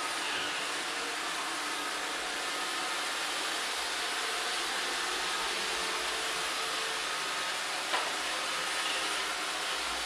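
iRobot Roomba 565 robot vacuum running: the steady whirring hiss of its vacuum motor and brushes, with one short knock about eight seconds in.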